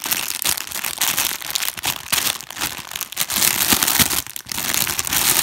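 Clear plastic packaging bag crinkling and crackling as hands open it to take out a pair of fabric headbands. The dense crackle stops near the end.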